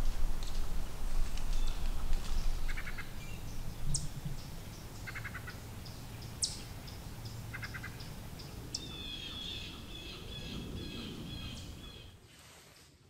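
Songbirds calling in woodland. A short, rapid stutter of notes repeats about every two and a half seconds, with sharp high chips between, and a burst of chattering calls near the end. A low rumble underneath fades away.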